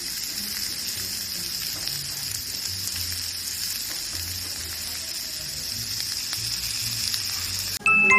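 Steak sizzling on a hot iron plate: a steady fizzing hiss. Near the end, loud upbeat music with bright metallic notes cuts in.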